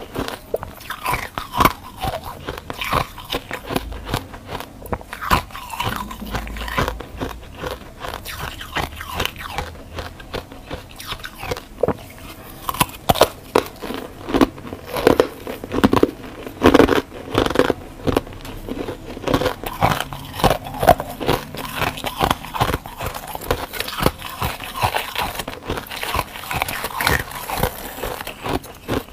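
Close-miked crunching of freezer frost and frozen ice being bitten and chewed: a rapid, irregular run of sharp cracks and crunches, loudest in the middle stretch.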